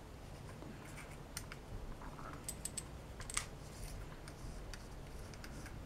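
Faint, irregular small metallic clicks and ticks as a center-lock lock ring is fitted and threaded by hand onto a splined center-lock adapter holding a 6-bolt disc brake rotor.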